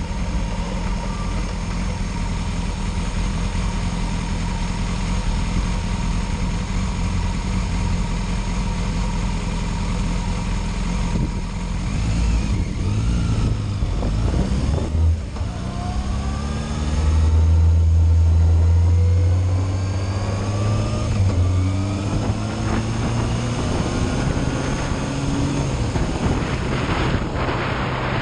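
Yamaha Fazer motorcycle engine idling while stopped, then pulling away and accelerating, its pitch rising again and again through several gear changes.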